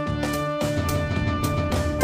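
Background music with a steady beat: pitched instrument notes over drums.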